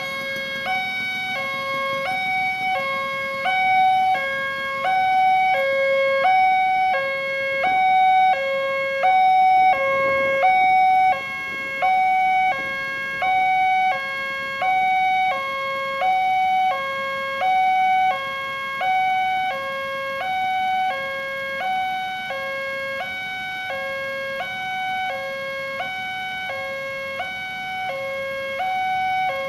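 Railway level-crossing warning alarm sounding: an electronic two-tone signal that alternates evenly between a higher and a lower tone, about one high-low pair a second.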